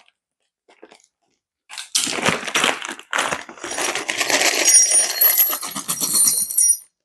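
Screws and metal fittings in plastic packets being handled and pulled out: crinkling plastic with bright metallic clinks and jingling, for about five seconds after a short quiet start.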